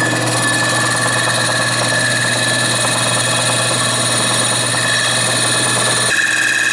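A machine running steadily and loudly, its pitch unchanging, with a sudden shift in tone about six seconds in.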